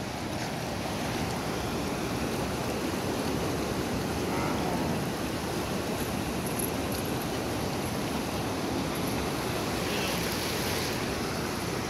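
Shallow mountain river rushing steadily over boulders and rapids.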